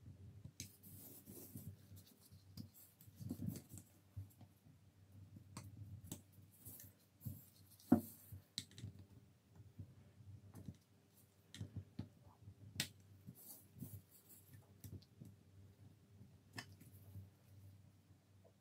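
Faint handling of a small metal signal-lamp housing: scattered light clicks and scrapes of metal parts being fitted and moved by gloved hands, with one sharper click about eight seconds in.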